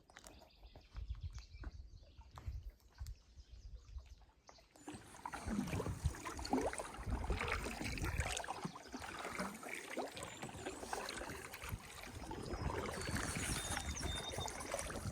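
Canoe travelling on a lake: water splashing and paddle strokes with wind on the microphone. A few light knocks come first, then the water sound comes in suddenly and louder about five seconds in.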